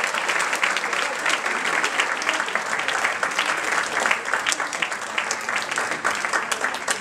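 Applause from a concert audience, many hands clapping in a dense, steady patter that eases off a little toward the end.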